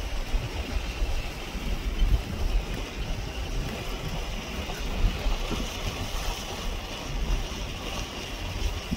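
Wind buffeting the microphone in uneven gusts of low rumble, over a steady rushing hiss.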